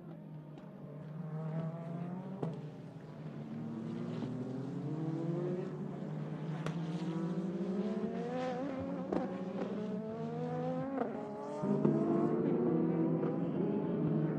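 Peugeot 9X8 Hypercar's twin-turbo V6 racing engine accelerating hard, its pitch climbing and falling back at each upshift several times over, with a steady low drone underneath.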